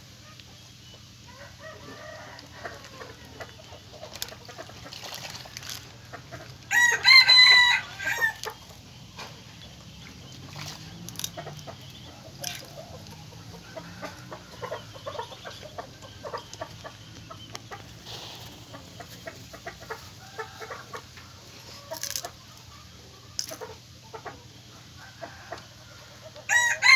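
A rooster crowing loudly once, about seven seconds in, and again near the end, with quieter short calls and ticks in between.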